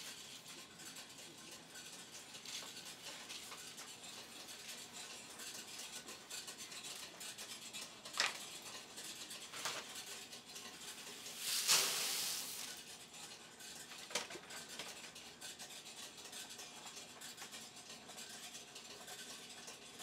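Puffed grain being stirred and scooped in the metal catch bin of a Korean rice popping machine: a steady crackling rustle with a few sharp metallic knocks, and a brief loud hiss just past halfway.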